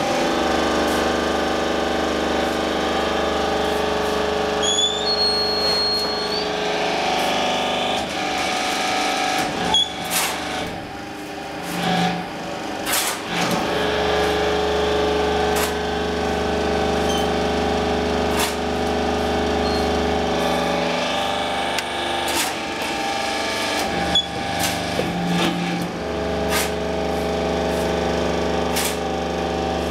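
Hydraulic brick press forming refractory fire bricks: its power unit runs with a steady, loud hum, and the low drone drops out for a few seconds about a third of the way in. Scattered sharp clanks and clicks from the press sound throughout, most of them in the middle and later part.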